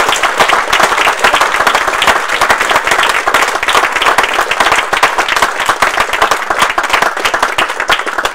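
A roomful of people applauding: many hands clapping at once in a dense, steady patter.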